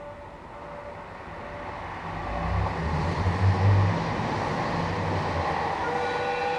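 DD51 diesel-hydraulic locomotive's engines running as it rolls slowly forward over the tracks, under a building rail rumble; the low engine note is loudest about three to four seconds in. Several steady higher tones start near the end.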